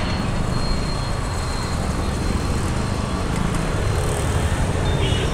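Steady road traffic noise from passing motor vehicles, mostly a low rumble of engines and tyres. A faint high steady tone sounds through about the first half.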